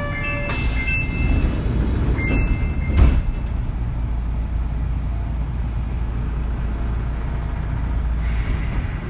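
Inside a Kintetsu 3200 series motor car standing at a station: a steady low rumble of the car's equipment. A rush of air hiss comes about half a second in and lasts some two seconds, and a single knock sounds about three seconds in.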